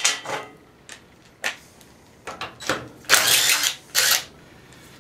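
Cordless impact driver hammering in short bursts, about three seconds in and again just after, backing out a bolt that holds the shroud on a small engine, with a sharp click near the start.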